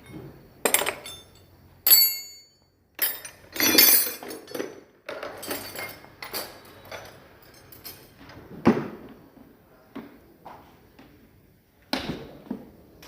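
Metal tools and parts of a sawmill carriage's drive clinking and knocking at irregular intervals, with one strike about two seconds in ringing out.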